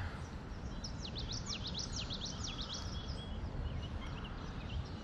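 A songbird singing a quick run of high, falling notes about a second in, followed by scattered fainter chirps, over steady low background noise.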